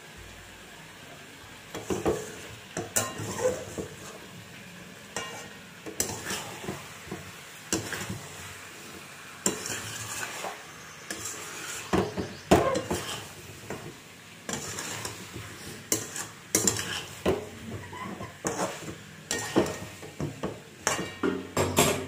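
Spatula scraping and knocking against a metal pan as chicken curry with potatoes is stirred and fried down, with frying sizzle underneath. This is the masala frying-down stage before water goes in. The stirring starts about two seconds in and comes in irregular strokes.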